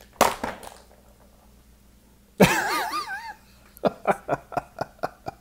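A hollow plastic toy capsule knocked down hard on a cloth-covered table, then a short wavering cry with a wobbling pitch, then a quick run of about eight sharp plastic taps as the capsule is knocked again.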